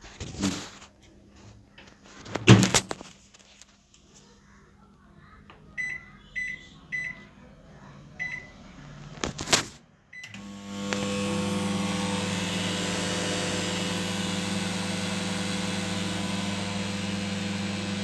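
IFB 30BRC2 rotisserie convection microwave oven: a thump as its door shuts, then four short keypad beeps as the program is set and a click. The oven then starts and runs with a steady hum.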